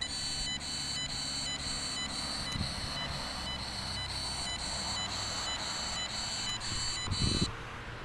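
Cornet electrosmog meter beeping in a steady run of high-pitched electronic pulses, about two a second, as it registers microwaves from a phone mast. The beeping stops shortly before the end, leaving a few faint handling knocks.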